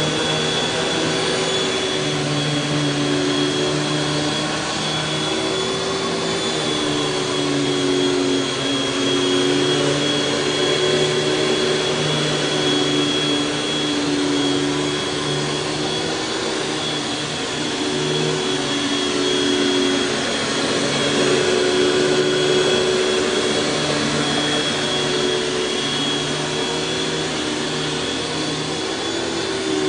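Panasonic Jet-Flo MC-6210 upright vacuum cleaner running continuously: a steady high whine over a motor hum whose lower tones waver slightly up and down.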